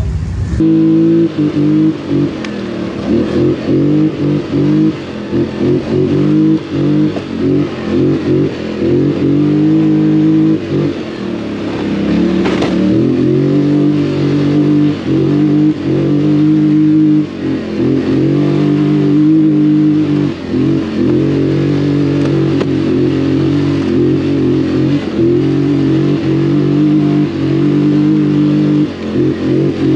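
An ATV engine running close by, its pitch and level shifting repeatedly as the throttle is worked.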